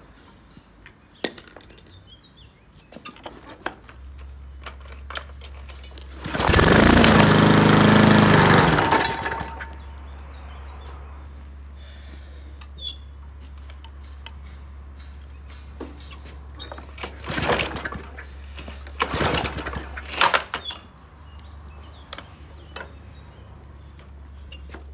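Briggs & Stratton lawn mower engine, cold after standing unused for 20 months. It gives one loud stretch of about two and a half seconds a few seconds in, then a steady low hum with a few shorter loud bursts about two-thirds of the way through.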